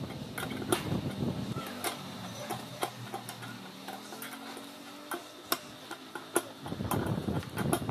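Irregular sharp metallic clicks and clinks of open-end wrenches being set on and turned against nuts, tightening the bolts of a salon chair's base plate. Low handling rustle runs under the clicks near the start and again near the end.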